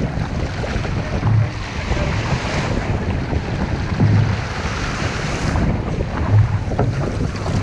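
Water rushing and splashing along the hull of an outrigger canoe under way, with heavy wind buffeting on the microphone that comes in a few stronger low gusts.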